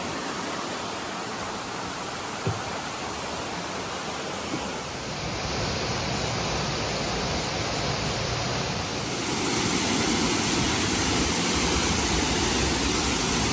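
Waterfall rushing: a steady roar of falling water that grows louder about a third of the way in and again past the halfway point.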